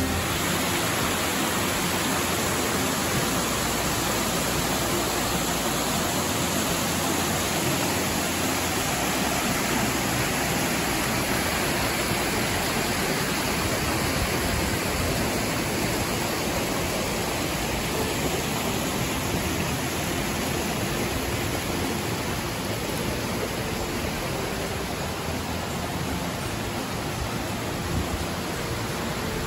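Water rushing and cascading over rock ledges of a waterfall and the rocky creek below: a steady, even hiss of falling and flowing water that eases slightly near the end.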